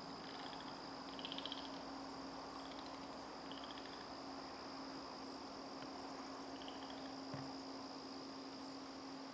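Faint woodland ambience of insects: a steady high buzz with four short chirping trills. There is a single light knock near the end.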